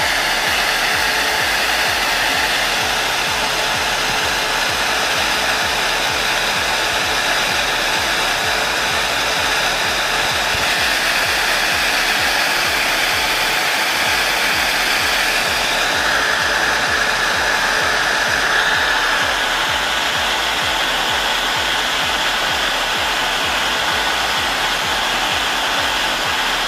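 DIY ducted fan (brushless DC motor spinning a computer cooling-fan rotor inside a plastic pipe reducer) running at a steady high speed. It makes a constant rushing of air with a faint steady motor whine.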